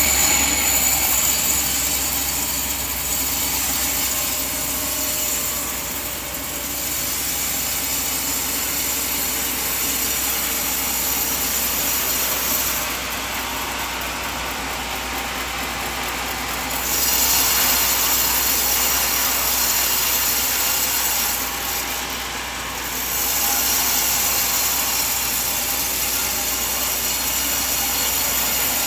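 Band sawmill running and cutting through a coconut log: a steady machine noise with a hissing cut that grows louder in stretches as the blade works through the wood.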